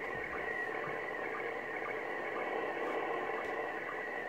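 Slow-scan television (SSTV) image signal from the International Space Station, in PD120 mode, received on 2 m FM and heard through the ICOM IC-746PRO transceiver's speaker. It is a steady high-pitched pattern of image tones, broken by a short lower sync blip about twice a second, over a hiss of static. The hiss comes from a signal that is still weak but getting better.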